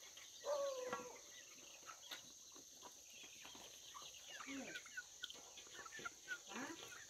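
Chickens clucking and chicks peeping as a mixed flock feeds at a bowl: one longer call about half a second in, then many short high peeps and a few lower clucks, all faint.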